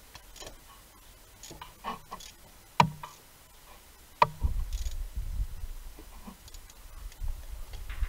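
Ratchet wrench clicking in short runs as a spark plug is turned in its well, with two sharp metallic knocks a little before halfway. A low rumbling noise comes in just after the second knock and continues.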